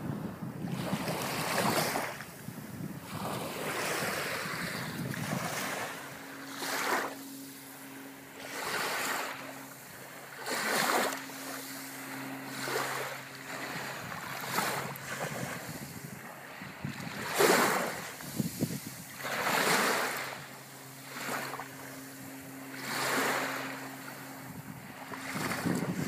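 Small waves washing onto a beach, the surf swelling and falling back about every two seconds. A faint steady low hum runs underneath through the middle.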